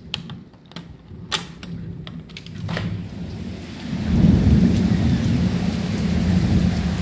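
Heavy rain pouring down in a thunderstorm, with a deep rumble of thunder. About four seconds in the sound of the rain and the rumble gets much louder, as if a door to the outside opens. A few sharp clicks and rattles come in the first three seconds.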